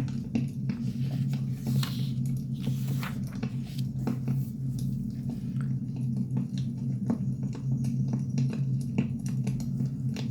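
Burning firewood crackling, with many irregular sharp pops and snaps over a steady low rumble.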